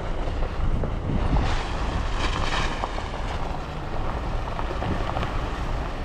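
A car driving along a road: a steady low rumble of tyres and engine, mixed with wind buffeting the microphone.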